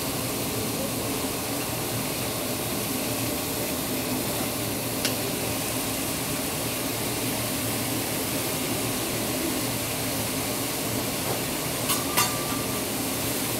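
Meat and vegetables sizzling steadily on a teppanyaki griddle, with a few sharp clicks about five seconds in and twice near the end.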